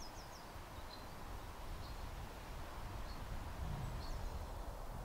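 Quiet open-field ambience: a steady low rumble of wind on the microphone, with small birds chirping: a quick run of chirps at the start, then single chirps about once a second.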